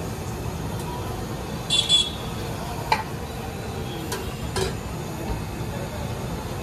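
Steady street traffic noise, with a brief high-pitched tone about two seconds in and a few light knocks after it.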